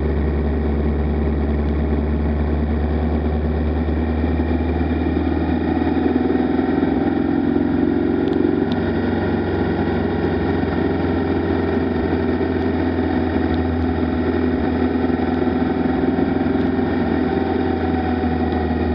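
Motorcycle cruising at a steady speed on a wet highway in the rain: a steady engine drone mixed with wind and road noise on the bike-mounted microphone, a little louder about six to eight seconds in.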